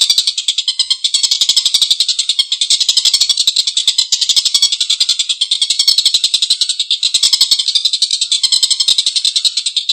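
Tengkek buto kingfisher giving a long, harsh, rapid rattling cackle of fast repeated notes that runs on without a break.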